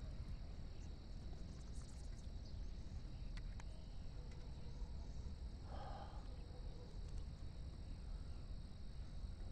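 Faint, steady, high-pitched chirring of insects over a low, steady rumble, with one short bird call about six seconds in.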